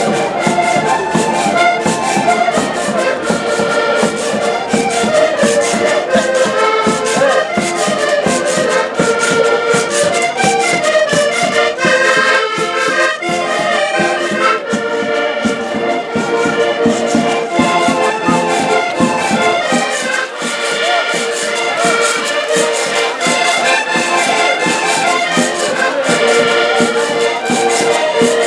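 Portuguese folk ensemble of button accordions playing a traditional tune together, with a bass drum and percussion keeping the beat.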